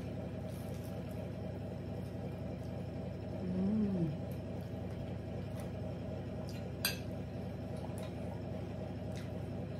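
Quiet eating at a dining table over a steady low hum: a short hummed "mm" that rises and falls about three and a half seconds in, and a single light clink near seven seconds.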